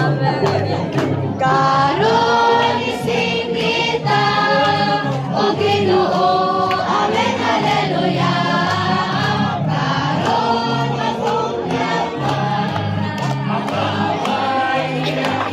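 Gospel music: a choir singing a worship song over a steady bass line.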